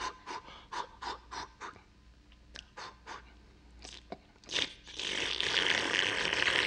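A storyteller's mouth sound effects for eating udon: a row of quick sniffs, about three a second, smelling the noodles. Then, after a short pause, a long airy hiss through pursed lips at the imaginary bowl, miming a sip of the hot soup.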